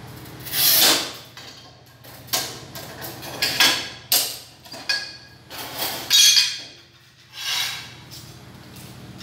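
A string of short scrapes and knocks from ceramic tile pieces being slid and set down on a manual tile cutter and the tiled floor; the loudest scrapes come about a second in and around six seconds in.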